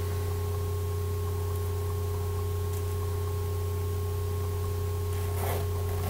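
A steady low hum, with a few brief rustles of clothing about five and a half seconds in as a zip hoodie is handled.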